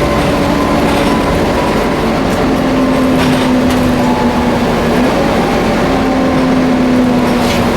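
Volvo B7TL double-decker bus under way: a steady engine drone with a whining note that shifts pitch a few times, the whine enthusiasts call a loud 'hoover'. A couple of brief rattles come through.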